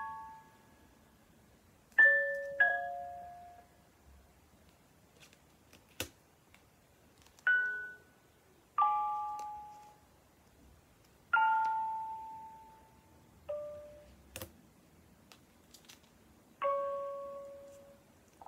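A slow, sparse tune of single bell-like notes, about seven of them, each struck and ringing out for a second or two before the next, with gaps between. Two sharp clicks fall between the notes, about six seconds in and again past fourteen seconds.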